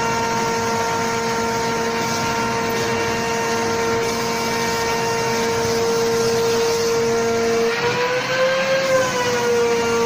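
Canister vacuum cleaner running with a steady whine while its brush nozzle is drawn over a dog's fur. Near the end the pitch rises briefly and settles back.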